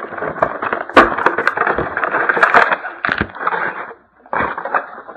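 Sealed trading-card packaging being torn open: plastic wrap and cardboard crackling and ripping in a quick run of sharp crinkles, with a short pause near the end before a few more.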